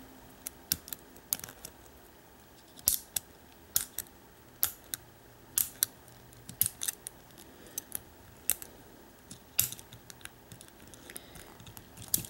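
Small sharp metallic clicks, irregular and about one a second, of a hook pick lifting the pin tumblers in a Defiant deadbolt cylinder under tension from a pry bar, as the pins are picked one at a time.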